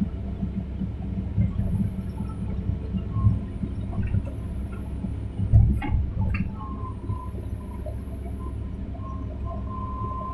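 Hitachi hydraulic excavator digging: the diesel engine runs with a low rumble and a steady high whine, and a few heavy knocks and clanks come near the middle as the bucket works the ground.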